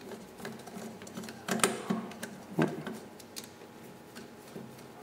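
Screwdriver turning small machine screws into a gearmotor tilt assembly's hub, with light clicks and rattles of metal parts being handled. Two louder knocks come about one and a half and two and a half seconds in.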